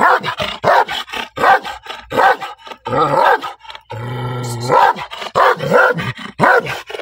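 Angry dog barking rapidly, about two to three barks a second, with one longer, held call about four seconds in before the barking resumes.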